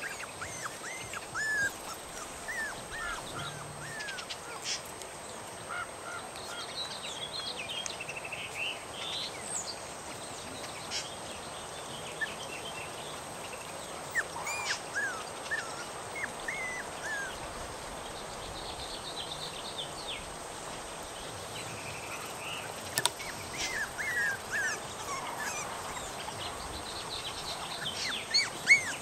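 Norrbottenspets puppies about three and a half weeks old whining: short, high whines that come in scattered clusters. They are upset at being woken and taken out of their familiar place, and want their mother to feed them.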